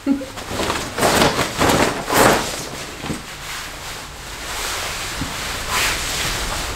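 Lightweight polyester barber cape swishing as it is swung out and draped over a seated person, with a few loud whooshes in the first couple of seconds, then softer rustling as it is settled and fastened at the neck.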